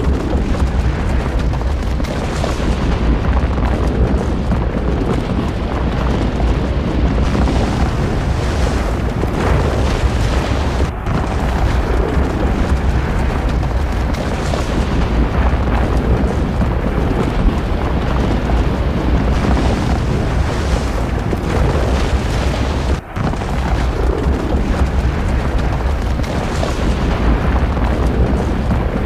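Volcanic fissure eruption heard as a loud, steady, deep noise with no let-up, dipping briefly about three quarters of the way through.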